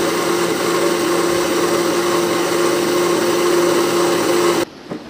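Electric mixer grinder (mixie) running at speed, blending a runny cake batter of eggs, sugar, oil and curd in its jar, with a steady motor hum. It switches off and cuts off suddenly near the end.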